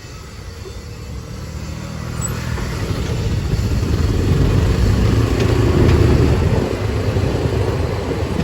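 Golf cart driving along a road: a low rumble of motor and road noise that builds over several seconds as it picks up speed, then eases slightly near the end.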